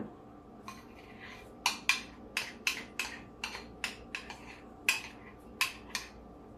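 A metal spoon clinking and scraping against a glass mixing bowl as frosting is scooped out: a run of sharp clinks, about two or three a second, starting about a second and a half in and stopping near the end.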